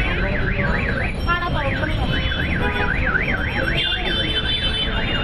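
A fast warbling electronic alarm, sweeping up and down about four times a second in the way a car alarm or siren does, sounds continuously over a steady rumble of street traffic.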